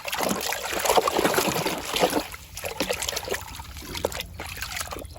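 Water splashing and trickling as a muddy toy vehicle is washed by hand, with irregular sloshes and rubbing. It is louder for the first two seconds or so, then softer.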